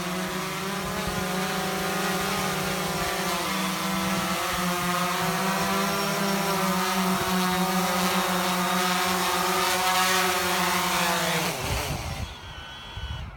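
DJI Phantom 3 Professional quadcopter's propellers buzzing steadily as it comes in to land, growing a little louder, then the motors spin down with a falling pitch and stop about twelve seconds in.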